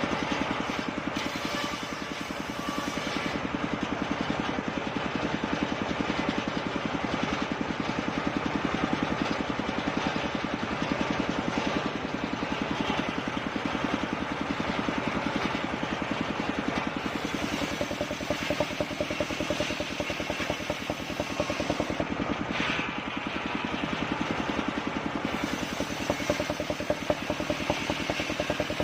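Engine of a homemade circular sawmill running steadily, with rapid even firing pulses.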